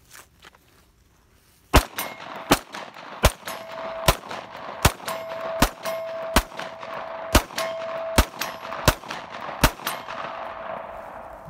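Glock 19X 9mm pistol fired in a steady string of about eleven shots, roughly one every three-quarters of a second, starting nearly two seconds in. Between the shots a steel target rings with a steady tone, and the echo dies away after the last shot.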